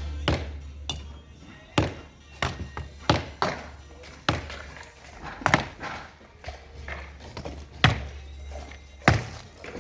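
Irregular sharp knocks, about a dozen hand-tool blows spaced unevenly, over a low steady hum.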